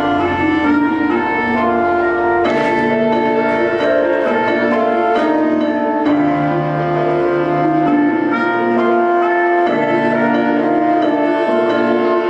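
Instrumental music with long held notes layered over a low bass line that changes every second or two.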